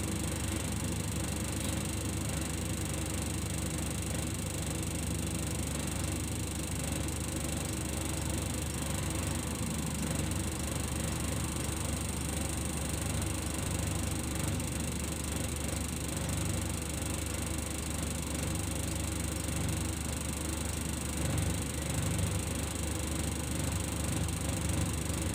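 A car's engine running steadily, heard from inside the cabin: a low, even hum with a faint hiss above it.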